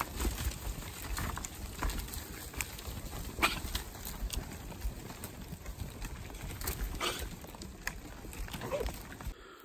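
A herd of goats browsing a pile of cut branches: steady rustling of foliage with many scattered sharp snaps and clicks of twigs being stripped and broken.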